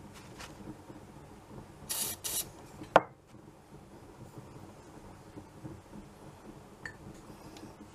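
Two short hisses from an aerosol can of Bisley silicone oil about two seconds in, followed a second later by a single sharp knock, the loudest sound. Faint rubbing of a cloth on the metal cylinder follows.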